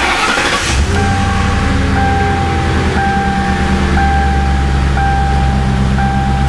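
The 2000 Ford Crown Victoria's 4.6-litre V8 starts and settles into a steady idle within the first second. The engine has a misfire present at idle. A warning chime beeps about once a second over the engine.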